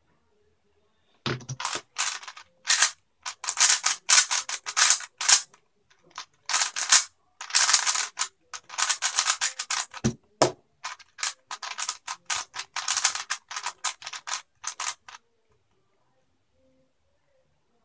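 A 3x3 speedcube's plastic layers being turned rapidly, in quick runs of clicking and clacking with short pauses between them. The turning starts about a second in and stops near the end.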